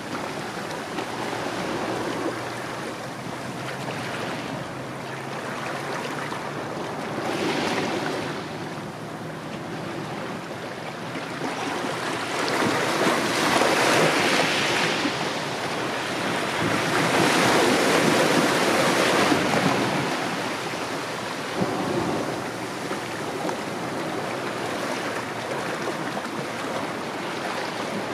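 Small sea waves washing in over a gravelly shore between rocks and drawing back, surging louder as each bigger wave breaks, most of all around the middle.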